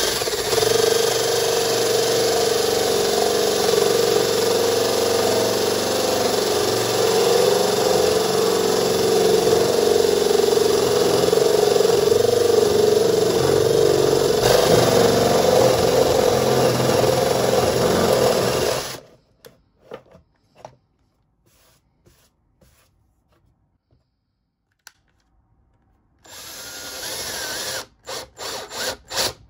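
Ryobi cordless drill boring into a white-faced wooden board with a spade bit, the motor and cutting running steadily for about nineteen seconds before stopping. After a pause, the drill starts again in short on-off bursts near the end.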